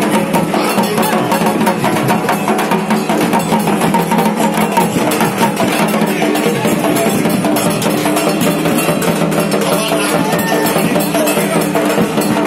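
Dhak, the big Bengali barrel drums, beaten in a fast, unbroken rhythm to drive the dance.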